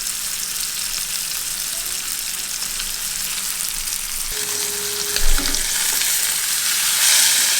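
Ribeye steak frying in a hot pan: a steady sizzle with fine crackling that swells louder near the end. A short thump a little after five seconds in.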